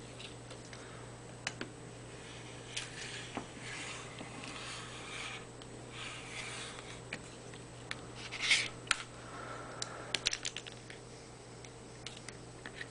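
Rotary cutter rolling through a sheet of TheraBand latex along an acrylic guide: a soft scratchy cutting sound for a few seconds. It is followed by a short, louder scrape and a run of light clicks and taps as the acrylic jig and latex are handled.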